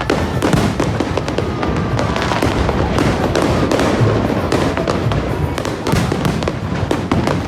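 Aerial fireworks going off in quick succession: a dense run of sharp bangs and crackling pops, with music playing underneath.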